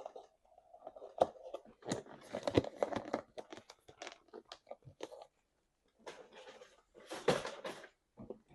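A person chewing meat with mouth smacks and crunching bites, in irregular clusters that are densest about two seconds in and again near the end.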